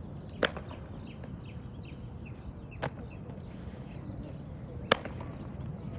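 Unarmed drill team's precision movements: three sharp single smacks of shoes and hands, about two seconds apart, the last the loudest.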